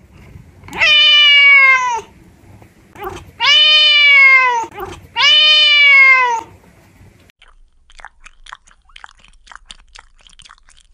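A silver tabby cat gives three long, loud meows, each dropping in pitch at the end. From about seven seconds in, a cat chews at its paw with quick, quiet clicks.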